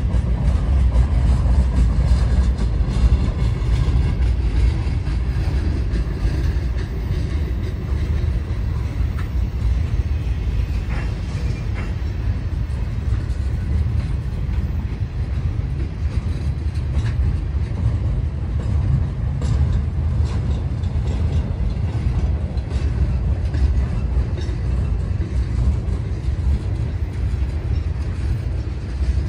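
Freight train's gondola cars rolling slowly past: a steady low rumble of steel wheels on rail, with light scattered clicks.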